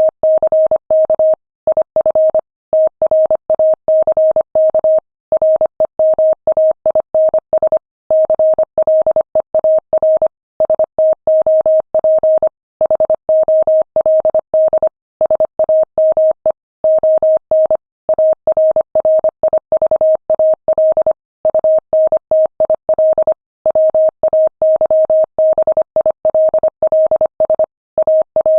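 Morse code sent at 25 words per minute: a single pure tone keyed rapidly on and off in dots and dashes, with short pauses between words, spelling out a text message.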